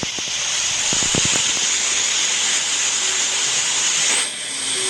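Steady loud hiss of noise, easing briefly near the end. A few soft low thumps come in the first second and a half.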